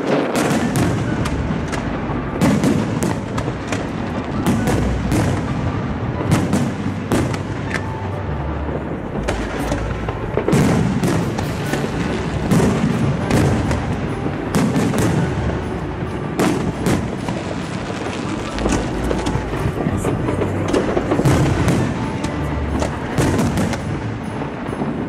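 Fireworks display: aerial shells bursting one after another, a steady run of irregular bangs and crackles.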